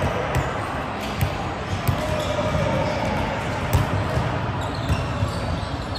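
Volleyballs being hit and bouncing on the hard court floors of a large gym: irregular thuds over a hum of distant voices.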